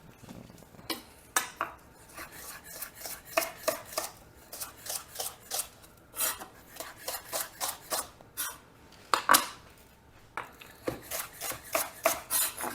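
Kitchen knife chopping leek on a cutting board: irregular runs of sharp knocks, a few a second, with short pauses between runs.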